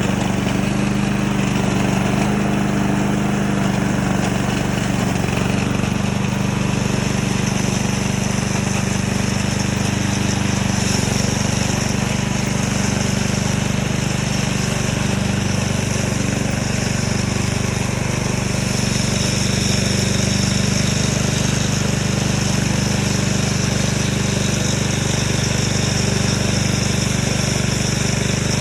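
Remote-control lawn mower's engine running steadily.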